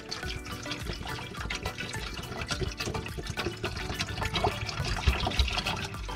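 Water in a cooking pot heating up on the stove, with many small irregular bubbling and dripping sounds; it is not yet at the boil.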